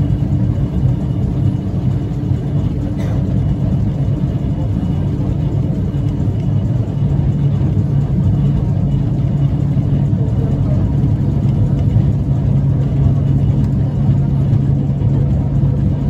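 W class electric tram running along street track, heard from the cab: a steady rumble of wheels and running gear, with a motor hum that grows stronger about seven seconds in.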